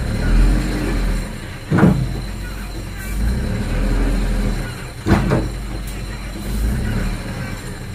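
Dump truck engine running with a steady low rumble, broken by two sharp thumps, one about two seconds in and another about five seconds in.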